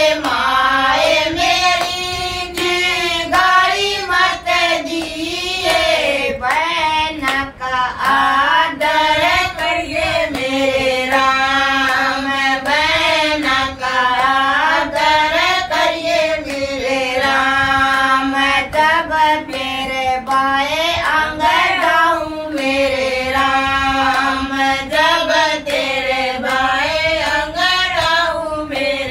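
Group of women singing a devotional folk bhajan together, unaccompanied, with hand claps keeping the beat.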